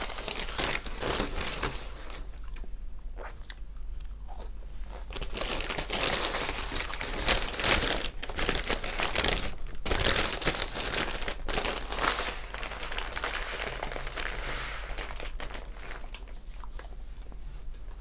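Brown McDonald's paper takeaway bag crumpled and folded up in the hands: a crinkling, rustling paper noise in fits and starts, loudest through the middle and dying away toward the end.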